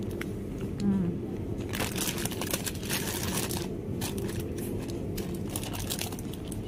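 Plastic packaging crinkling and rustling in short, irregular bursts as it is handled, over a steady low background hum.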